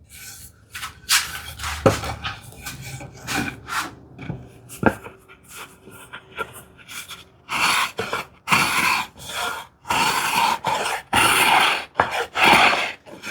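Light clicks and knocks of a tool being handled on a wooden board, then, about halfway in, a run of short scraping strokes of a marking gauge's cutter scoring a line along the wood.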